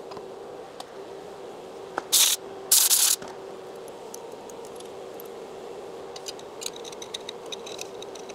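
Two short blasts of a compressed-air blow gun, about two and three seconds in, over a steady machine hum. Later come light metallic clicks of a collet nut and spanner wrench being fitted on a CNC lathe's live tool holder.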